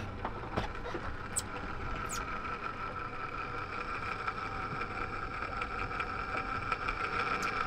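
Shimano Tiagra 130 electric deep-drop reel free-spooling, its spool whirring steadily as line pays out on the drop.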